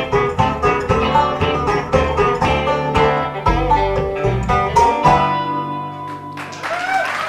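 Bluegrass trio of five-string banjo, upright bass and guitar playing quick picked runs, closing on a held final chord about five seconds in that rings out and fades. Audience applause with whistles and whoops starts near the end.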